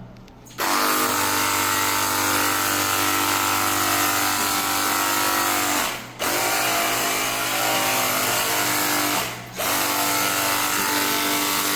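Cordless lithium-ion battery pressure washer running: its motor and pump hum steadily over the hiss of the water spray. It starts about half a second in and cuts out briefly twice as the trigger is let go and squeezed again.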